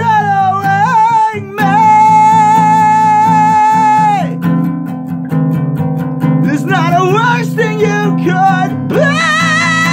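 Guitar-backed rock song: a steady strummed guitar bed under a sung melody that holds one long note starting about a second and a half in.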